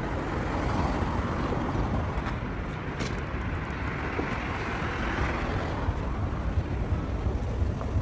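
Street traffic noise with a car passing, swelling and fading in the middle, over wind rumbling on the phone's microphone.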